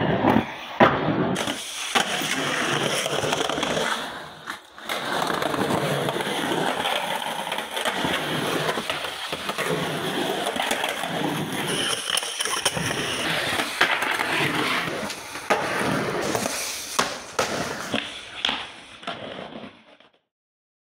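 Skateboard wheels rolling over rough concrete in a DIY bowl, with sharp clacks and knocks of the board and trucks hitting the surface. The sound fades out near the end.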